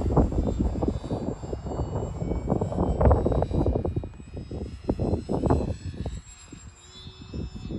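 Wind buffeting the microphone in gusts, over the thin high whine of a small electric RC warbird's motor and propeller (Durafly P-40 Warhawk on a 4S battery) flying overhead, its pitch drifting slowly. The wind eases after about six seconds.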